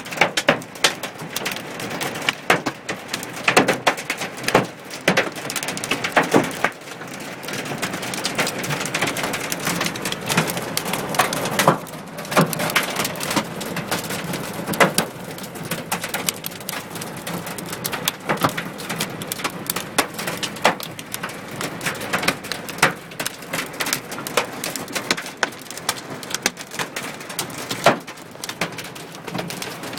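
Hailstones and heavy rain drumming on a car's roof and windows, heard from inside the car: a dense, steady patter broken by many irregular sharper hits.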